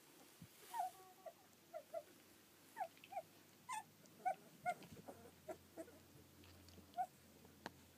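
Eighteen-day-old collie puppies whimpering, a string of about a dozen short, high-pitched squeaks at irregular intervals, with one short tap near the end.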